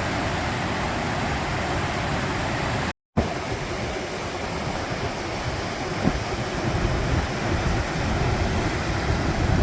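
Rushing creek water, a steady hiss, with an uneven low rumble growing stronger in the second half. It drops out briefly about three seconds in.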